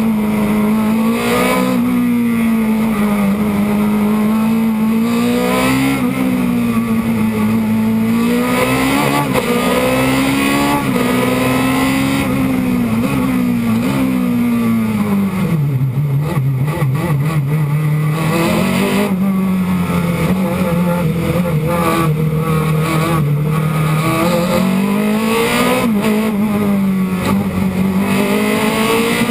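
Osella PA9/90 sports-prototype racing car's engine at full racing speed, heard from the cockpit. Its note rises and drops repeatedly with gear changes, settles lower for a few seconds past the middle, then climbs again.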